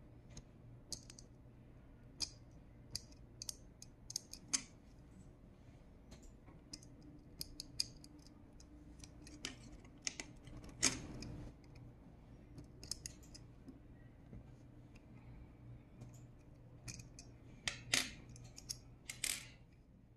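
Sanrenmu folding multi-tool knife being handled: scattered sharp metal clicks as screwdriver bits are fitted into its bit holder and the tools are folded, with a few longer scrapes about eleven seconds in and again near the end.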